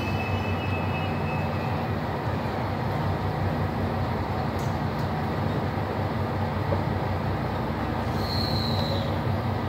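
JR Shikoku diesel limited express train creeping into the platform, its engines running with a steady low drone. A short high squeal comes about eight seconds in as the train comes to a stop.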